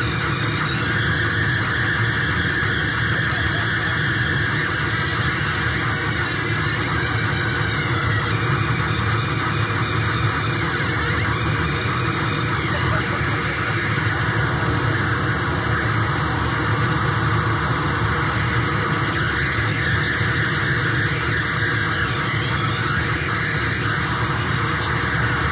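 Harsh electronic noise from a live noise-music set, a dense steady wall of sound with a high squeal running through it.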